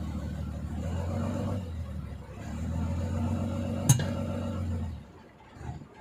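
A vehicle engine running steadily at low speed, easing off briefly about two seconds in and stopping about five seconds in. A single sharp click comes near the four-second mark.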